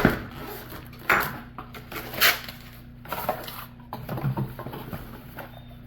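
Fridge organizer bins knocking and clattering as they are handled, with a sharp knock at the start and a few lighter knocks and rustles about a second apart.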